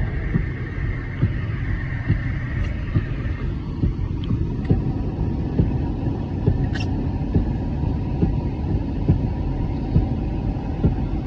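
Inside a moving vehicle's cabin on a snow-covered road: a steady low rumble of engine and tyres, with frequent small irregular thumps.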